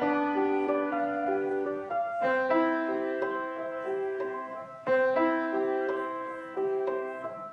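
Background piano music: a gentle repeating figure of notes and chords that swells about two seconds in and again around five seconds, then fades out near the end.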